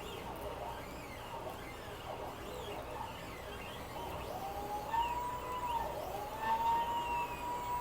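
Stepper motors of a CNC plasma table whining as the gantry moves: the tone climbs in pitch about halfway through, dips sharply, then holds steady. Faint bird chirps come before it.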